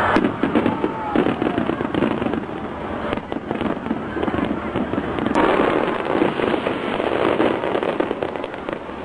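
Fireworks going off in a rapid, dense crackling run of many small pops, with crowd voices underneath.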